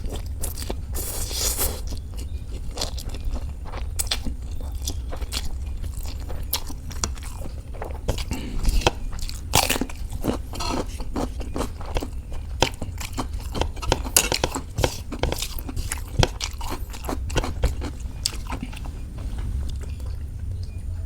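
Close-up eating sounds of a person chewing fried noodles, with many irregular small mouth clicks and smacks over a steady low hum.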